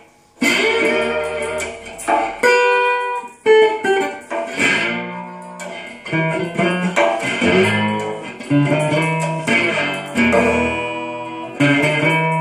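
Dobro-style resonator guitar played through an amplifier: blues picking, with single notes and chords over a low bass line. It stops for a moment right at the start, then the playing resumes.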